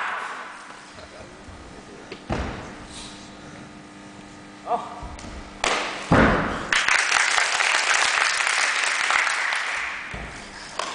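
Thuds of a wushu southern-staff (nangun) routine on the competition floor: a single thud about two seconds in, a short shout a couple of seconds later, then two heavy thuds around six seconds in. Audience applause follows and runs for several seconds before fading near the end.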